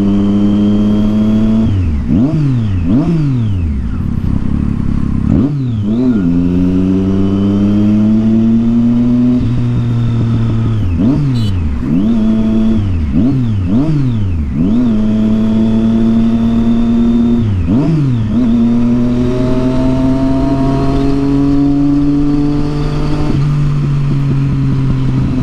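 Triumph Street Triple 675's inline three-cylinder engine through a loud Yoshimura exhaust, under way. Long stretches of slowly rising pitch are broken several times by quick runs of revs that drop and climb sharply.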